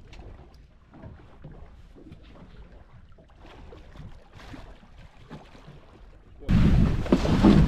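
Faint lapping water and small splashes against the side of a small boat as a tope shark is grabbed by hand at the surface. About six and a half seconds in, loud wind noise on the microphone starts suddenly and drowns everything else.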